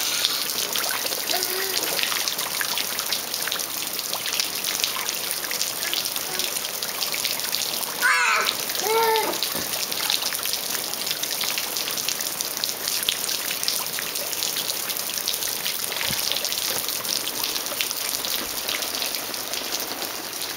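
Water spraying from a hose-fed inflatable whale wading pool and pattering down as a steady hiss of falling drops, with light splashing. A young child gives a brief high vocal sound about eight seconds in.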